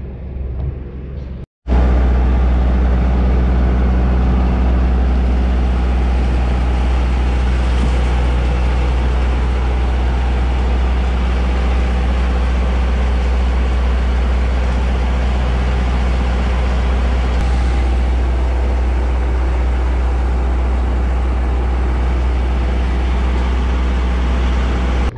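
Fishing boat's engine running steadily close by, with a constant rush of water pumped into the fish tub to aerate the catch. It starts abruptly after a short dropout about one and a half seconds in.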